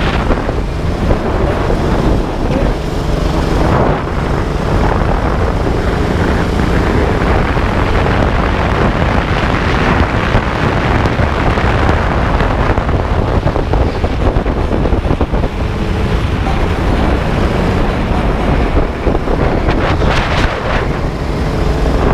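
A 12 hp go-kart engine running continuously at racing speed, under heavy wind buffeting on the microphone.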